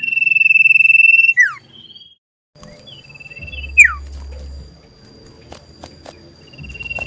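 Common iora (cipoh) calling loudly: a long whistle held on one high pitch that ends in a quick downward slur, given three times. This is the bird's challenging call, as if seeking a rival.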